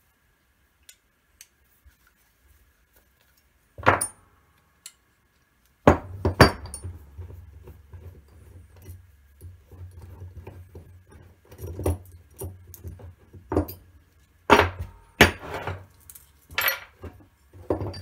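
A metal concho die set being handled and opened on a wooden workbench: scattered metal clinks and knocks on wood, with low handling rustle between them.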